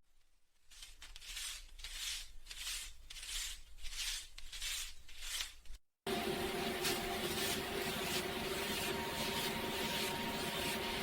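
Paper banknotes rustling in soft, even strokes, about two to three a second. After a brief break about six seconds in, the strokes go on over a faint steady tone.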